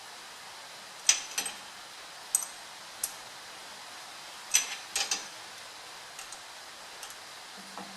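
Sharp metallic clicks and ticks in small irregular clusters as an 8 mm wrench is worked on a Loctited lock bolt inside a GM 10-bolt 7.5-inch rear end differential, being snugged only lightly.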